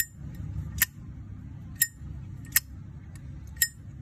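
Brass Zippo Armor lighter's lid snapping open and shut: five sharp metallic clicks, about one a second, each with a brief ring.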